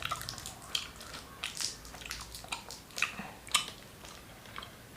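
Bubble gum being chewed, a double mouthful, giving irregular wet smacks and sticky clicks.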